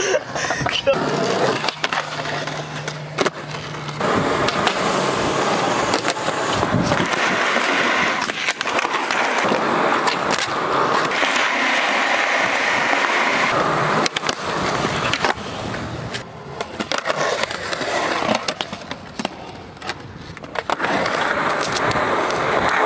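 Skateboard wheels rolling over smooth concrete with a steady rumbling hiss, broken now and then by sharp clacks of the board hitting the ground. The rolling eases off for a few seconds about two-thirds of the way through, then picks up again.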